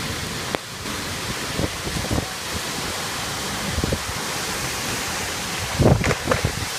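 Heavy wind-driven rain hissing steadily in a storm, with gusts of wind buffeting the microphone in low thumps, heaviest about six seconds in.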